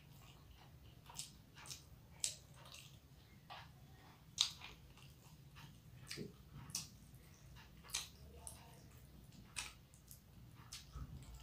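A person chewing a mouthful of food, with about ten short wet clicks and smacks scattered through. The loudest smack comes about four seconds in.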